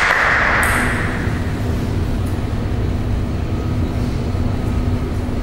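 Spectators' applause after a point fades out within the first second, leaving the steady low hum of the hall's background noise with a faint steady tone.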